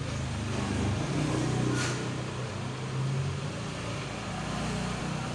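A low mechanical drone that swells and eases a little, with a brief hiss just under two seconds in.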